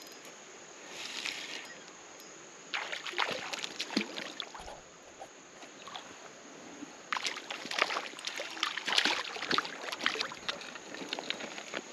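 Creek water splashing and sloshing in irregular bursts, busiest in the last few seconds, as a hooked smallmouth bass is fought and landed in the shallows.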